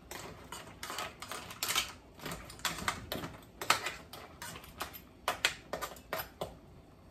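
Metal spoon stirring crab pieces in a stainless steel pot: quick, irregular clinks and scrapes of spoon and shell against the pot, stopping about six and a half seconds in.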